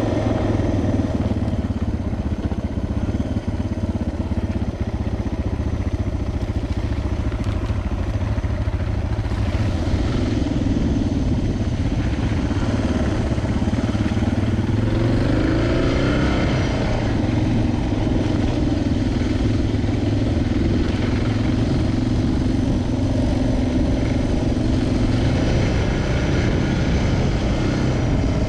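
Suzuki DR650's single-cylinder four-stroke engine running under way, its note falling and then climbing again about halfway through as the rider eases off and accelerates.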